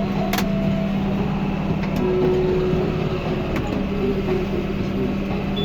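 John Deere 6430 Premium tractor running steadily with a round baler in work, with one sharp click about half a second in and a couple of fainter ticks later.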